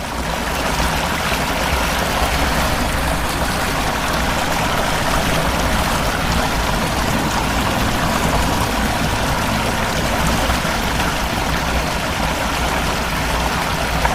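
Floodwater rushing steadily, a continuous torrent with a deep low rumble.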